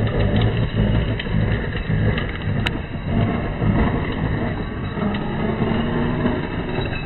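Electric RC scale crawler truck driving over logs and dirt, its motor and gears whirring unevenly under load while the tyres scrabble. Small clicks of flung dirt and gravel, with one sharper click about two and a half seconds in.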